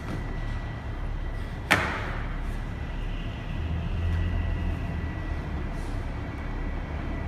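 One sharp thud about two seconds in, feet landing on the rubber gym floor as a man comes down from a wall handstand, over a steady low rumble and a faint constant high tone.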